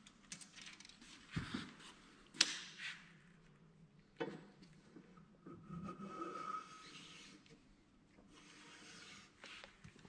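Hand plane shaving a split-bamboo strip in a metal planing form: faint scraping strokes broken by a few sharp knocks. These are the last light passes, with the plane taking almost nothing off as the strip comes flush with the form.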